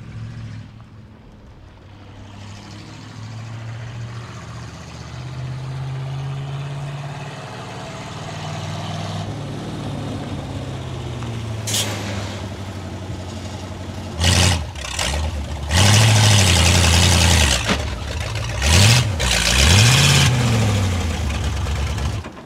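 1962 Ford C750 cabover truck's 332 Y-block V8 engine running as the truck drives closer, growing louder. In the second half the engine note rises and falls several times, with loud bursts of hiss.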